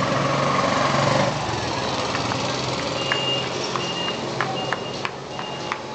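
A motor vehicle's engine running amid steady street noise, then several short high-pitched beeps from about halfway through.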